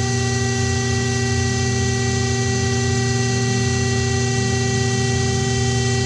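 Electric-driven pump of a rope break-test rig running steadily under load with a constant mechanical hum and whine while it pulls a climbing-rope bridge towards breaking.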